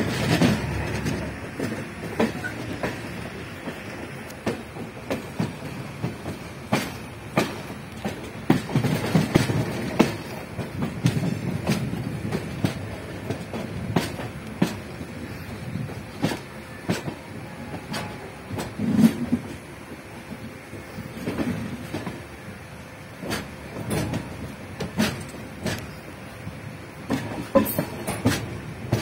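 Indian Railways passenger coach running along the track, its wheels clattering irregularly over rail joints and points under a steady rumble and rush of air, heard from the open coach doorway.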